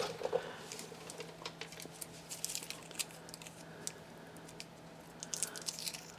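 Faint scattered clicks and crinkles of fingers handling a small gear-case oil plug while fitting a new crush washer onto it, over a faint steady low hum.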